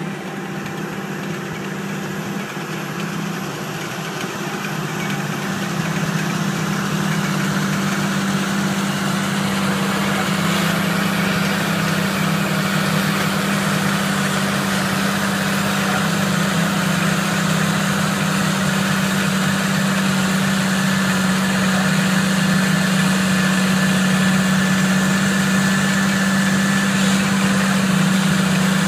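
John Deere tractor engine running steadily under load while pulling a laser land-levelling scraper through dry soil: a strong, even low hum that grows louder over the first six seconds, then holds steady.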